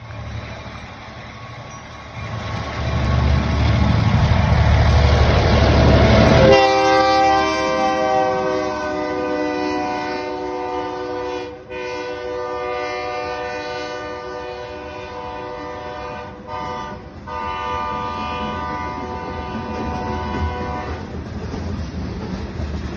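Freight train passing close by. The diesel locomotive's engine rumble grows louder as it approaches, and its horn sounds and drops sharply in pitch as it passes about six and a half seconds in. The horn keeps blowing, sliding slowly lower with a few short breaks, until near the end, while covered hopper cars roll past with wheels clattering on the rails.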